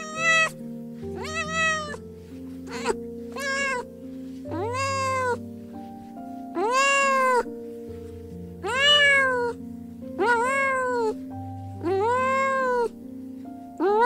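A cat meowing again and again, about nine times, each meow rising and then falling in pitch, the later ones longer and drawn out.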